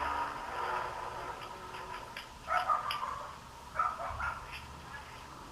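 A dog barking a few times in short bursts, about two and a half seconds in and again around four seconds in.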